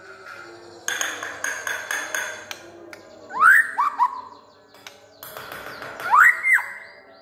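White-rumped shama (murai batu) singing: a quick run of chattering notes about a second in, then loud rising whistles around three and a half seconds in and again near the end.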